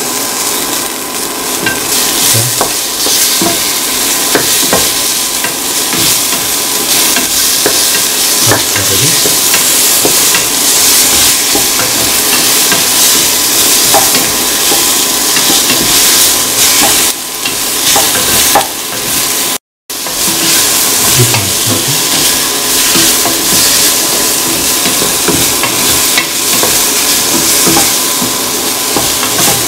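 Tomato pieces, onions and curry leaves sizzling in hot oil in a steel pan while being stirred, with a steady loud hiss and scattered clicks and scrapes of the utensil against the pan. The sound drops out completely for a moment about two-thirds of the way through.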